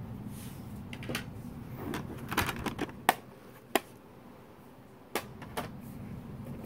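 Hard plastic graded-card slabs clicking and clacking against each other as they are handled and stacked, with some rustling in the first few seconds and a handful of sharp separate clicks.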